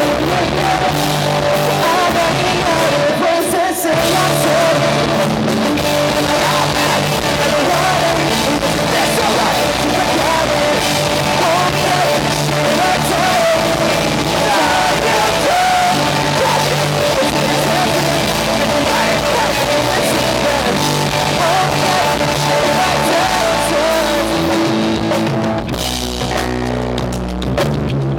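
Pop-punk band playing live: sung lead vocal over distorted electric guitars, bass and drums. Near the end the cymbals drop away and the sound thins out for a moment.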